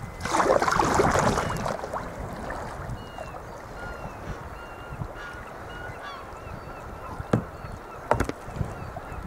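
A loud rush of water for the first second or two, then many short, repeated seabird calls, with two sharp knocks near the end.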